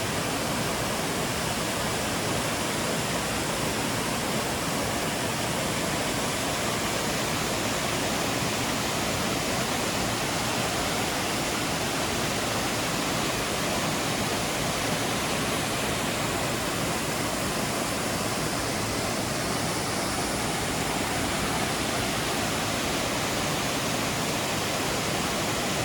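Steady rush of water from a waterfall, an even, unbroken wash of sound.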